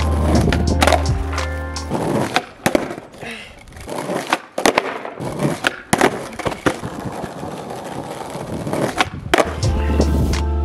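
Skateboard on asphalt during flatground tricks: wheels rolling, with a series of sharp clacks as the tail pops and the board lands. Background music with a heavy bass beat plays over it, loudest at the start and again near the end.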